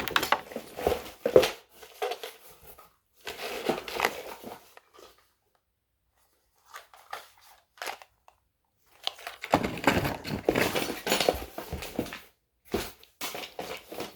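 Rummaging through a box of old parts by hand: paper and plastic crinkling, with small knocks and clicks, in irregular bursts broken by short pauses.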